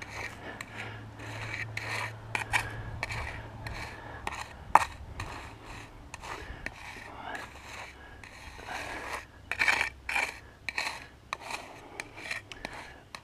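Steel hand trowel scraping and pushing gritty cold-patch asphalt mix across a cracked blacktop driveway in irregular strokes, working it into the pothole's edges. There is one sharp click about five seconds in.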